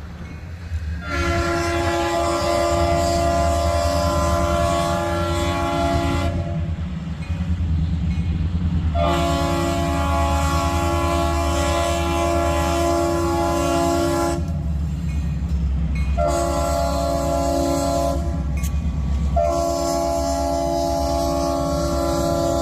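A diesel locomotive's multi-note horn sounds long, long, short, long, the standard signal for approaching a grade crossing, over the steady low rumble of the train.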